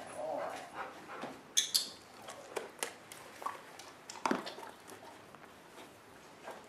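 Labrador retriever in a small room: a short sound near the start, then scattered clicks and taps.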